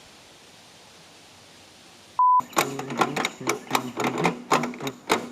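A short, loud single-pitch censor bleep about two seconds in, with the background dropping out around it. A person's voice follows in short broken bursts.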